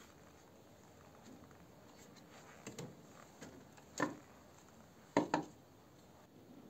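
Split firewood logs knocking as they are set into a wood stove's firebox: a few sharp knocks, the loudest about four seconds in and two close together a little after five seconds.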